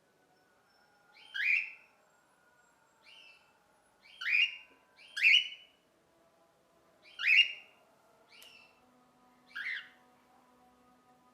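Cockatiel giving its flock call: about seven short, separate calls, each sliding up in pitch, some loud and some fainter, spaced a second or two apart.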